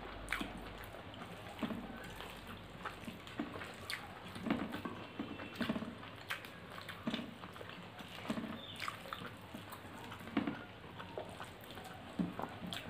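Wet chewing and lip smacking from two people eating, with fingers squishing rice and curry together on the plates; short irregular smacks and clicks every half second or so.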